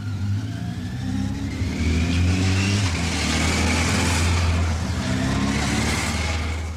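A motor vehicle's engine running as it draws near and passes, with a rising whine as it speeds up. It is loudest in the middle and falls away near the end.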